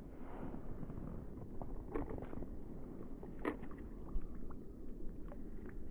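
Low steady rumble of a small boat sitting on the water, with a few light knocks, the clearest about two seconds and three and a half seconds in.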